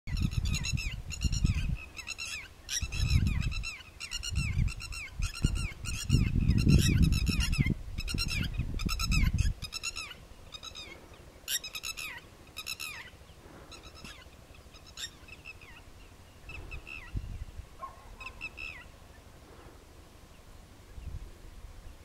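Waterfowl calling: a rapid run of short, arched, honking calls, several a second, dense for the first dozen seconds and then thinning to scattered calls that stop near the end. A low rumble sits under the first half.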